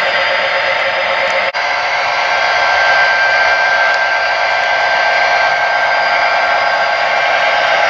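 HO scale model trains running on the layout: a steady whir of motors and wheels on the track, with a few faint held tones, briefly dropping out about 1.5 seconds in.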